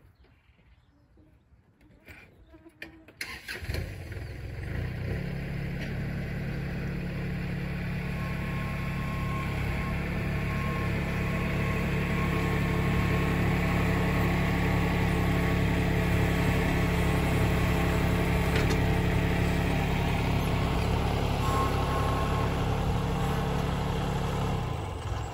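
Kubota L3901 tractor's three-cylinder diesel engine running, coming in about three seconds in and growing louder as the tractor backs up to the log splitter, then holding steady and easing off near the end.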